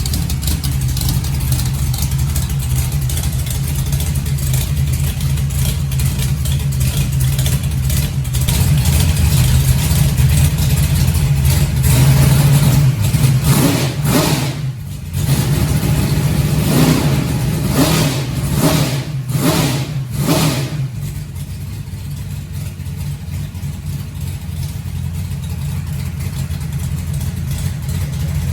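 440-cubic-inch small-block Chevy V8 running at idle, then revved in several quick, sharp blips through the middle before settling back to idle.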